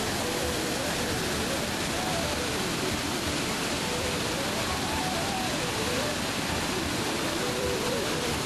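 Steady, unbroken rush of a fast river crashing over rocky falls and rapids in heavy white water.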